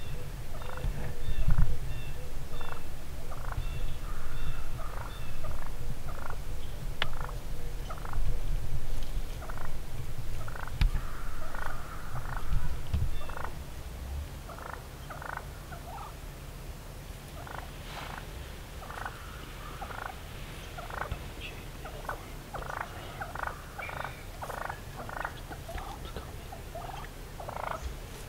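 Wild turkeys calling close by: a long, irregular run of short clucking notes, louder over the first half, over a low rumble.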